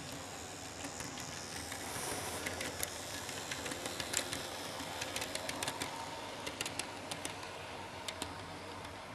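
N gauge model train running past on its track: a steady small-motor hum and faint whine with many sharp clicks of the wheels over the rail joints. It grows louder in the middle as the train goes by.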